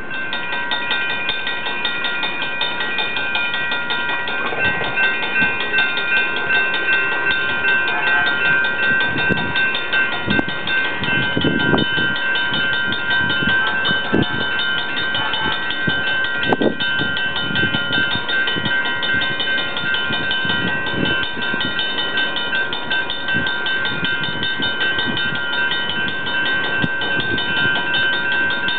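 Railroad crossing warning bell ringing continuously with rapid, even strikes, several steady ringing tones sounding together. Irregular low thumps and rumbles come and go underneath through the middle.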